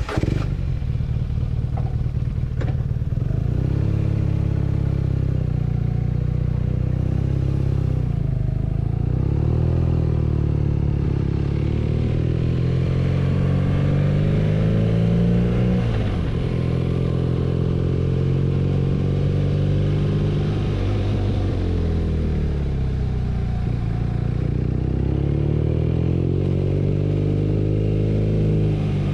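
BMW R nineT's boxer twin under way, its note rising and falling as the throttle opens and closes through the gears, with a sharp drop in revs about sixteen seconds in.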